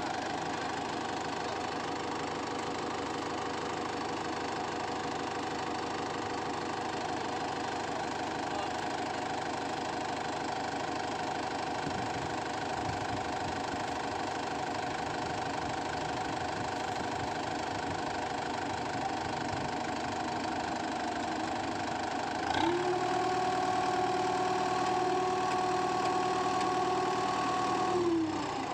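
Kubota tractor's diesel engine running steadily, then revved up about 22 seconds in and held there for several seconds before dropping back near the end.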